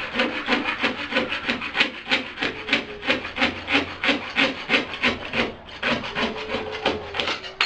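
Sandpaper being rubbed back and forth over the end of a plastic pipe connector to rough it up before solvent cementing, in quick, even scraping strokes of about four to five a second.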